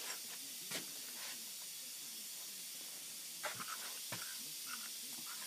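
Steady low hiss with a few faint small metal clicks as a steel coupling nut is handled and threaded onto a threaded collet-stop rod.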